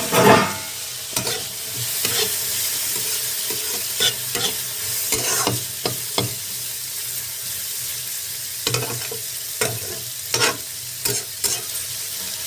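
Chopped carrots, beans and peas sizzling as they fry in oil in a metal kadai, with a metal spatula scraping and knocking against the pan in irregular strokes. The loudest scrape comes right at the start.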